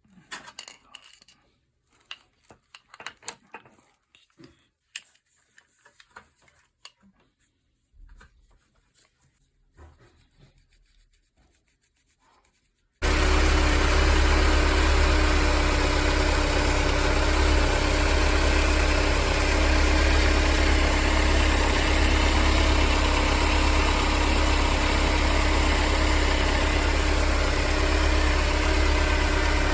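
Faint scattered clicks and knocks, then a Mercedes-Benz 190E's M102 four-cylinder engine comes in suddenly, running steadily at idle with a steady tone over its rumble. It is running with the abnormal noises its owner is chasing, which the owner puts down to the belt tensioner.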